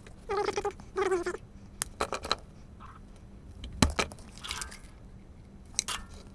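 A cat meows twice in quick succession, two short calls about half a second apart. Then comes a run of sharp clicks from handling on the workbench, the loudest a little before four seconds in.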